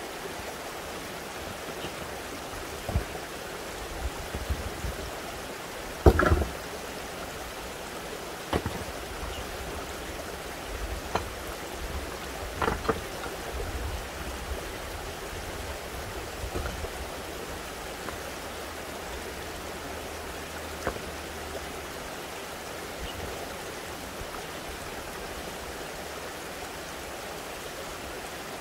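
Loose stones of a dry-stone wall clunking and knocking together as they are pulled out and set down by hand, a scatter of separate knocks with the loudest about six seconds in, then only the background for the last third. Under it runs the steady rush of spring water.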